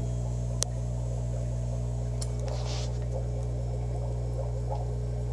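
Steady low electrical hum of aquarium equipment running in a fish room, with one sharp click about half a second in.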